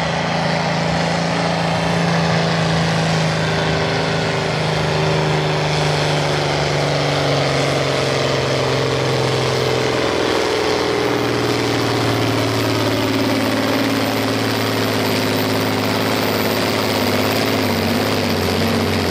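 International Harvester tractor's turbocharged diesel engine running hard under load while pulling a weight transfer sled. Its pitch slowly sinks as the sled's weight builds, with a clear drop about halfway through.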